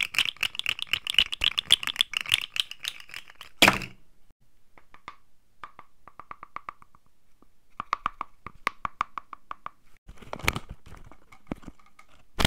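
Stiff paper crinkling and crackling close to a microphone as a paper dragon puppet chews a striped paper object: dense fast crackles with a louder crunch about four seconds in, then sparser clicks and another crunch about ten seconds in.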